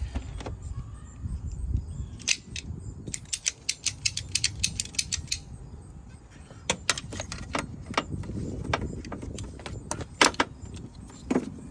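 Hand tools and parts clicking and rattling during hands-on work on a car's vacuum hose, with a quick run of about a dozen clicks about three seconds in and a few louder single clicks later.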